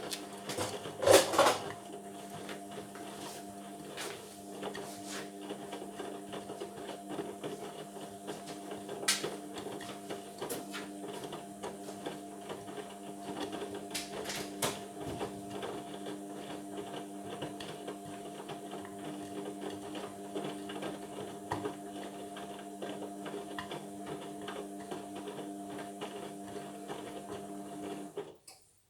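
Indesit washing machine on a Cotton 60 cycle, its drum turning and tumbling the load: a steady motor hum with small clicks and knocks throughout and a louder clatter about a second in. The drum stops abruptly near the end.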